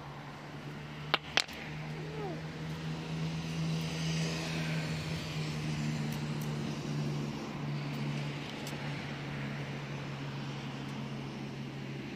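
Road traffic: a steady low engine hum, with a passing vehicle swelling to a peak about four seconds in and slowly fading. Two sharp clicks about a second in.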